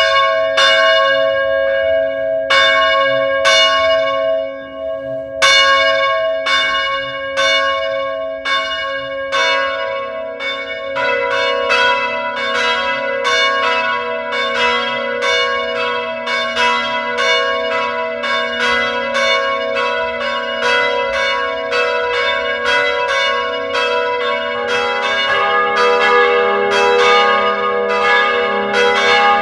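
Church bells ringing in a quick series of strikes, each tone ringing on under the next. There is a short pause about four seconds in, and from about ten seconds the strikes come faster, about two a second, with several bells sounding together.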